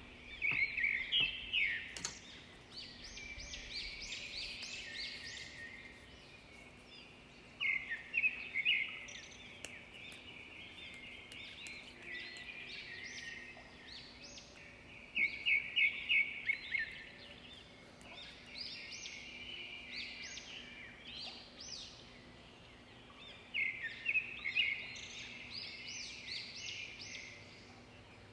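A songbird singing in repeated phrases of rapid high chirps, a phrase every several seconds, over a faint steady hum. A single sharp knock about two seconds in.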